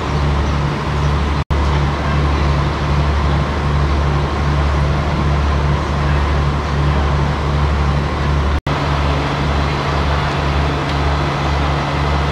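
Steady low rumble of an idling diesel engine, throbbing evenly about twice a second.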